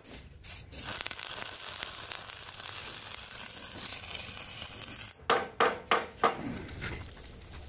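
Stick arc welding on a steel truck chassis rail: the arc's steady crackle for about five seconds, then four sharp knocks in quick succession.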